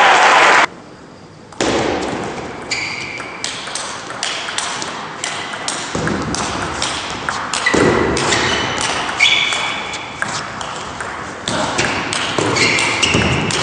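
Table tennis rally: a celluloid ball clicking off the players' bats and bouncing on the table in a quick run of hits, each with a short ringing ping.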